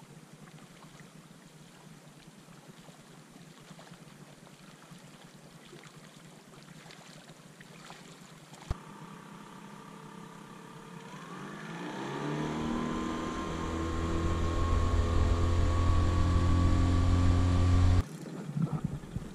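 Faint hiss at first, then, from about halfway, a motorboat engine that rises in pitch as it speeds up and then runs at a steady pitch, growing louder, until it cuts off suddenly near the end.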